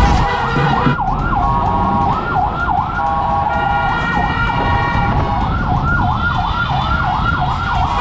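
Vehicle-mounted electronic siren yelping: fast rising-and-falling sweeps, several a second, in runs broken by short pauses, quickest near the end, over the sound of traffic.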